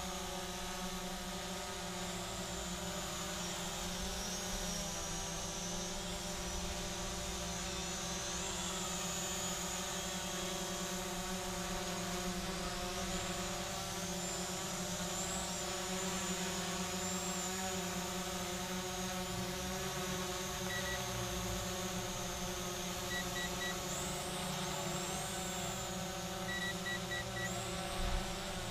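Visuo mini quadcopter drone in flight, its small motors and propellers whining high with the pitch wavering up and down as the throttle and direction change, over a steady lower hum. A few short electronic beeps sound in the second half.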